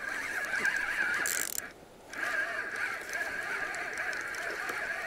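Spinning reel being cranked, its gears giving a steady whirring rattle while a hooked small catfish is reeled in. The cranking stops briefly just under two seconds in, then resumes.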